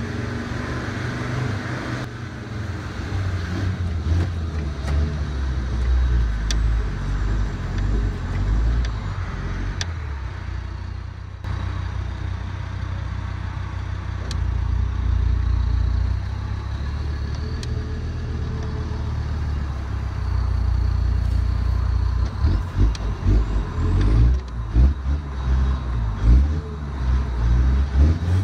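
Low, continuous vehicle-like rumble from a radio-controlled Bruder Land Rover Defender pickup conversion driving while it tows a two-axle trailer. The rumble pulses unevenly near the end.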